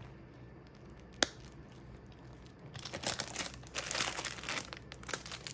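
Clear plastic packaging crinkling as photocard binders wrapped in plastic bags are handled, starting about halfway through and continuing in irregular rustles. One sharp click about a second in.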